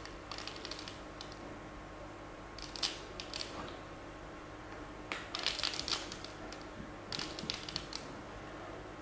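A shaker jar of tiny sugar sprinkles (nonpareils) shaken in about four short bursts, the beads rattling inside and scattering onto a chocolate-coated chestnut and paper.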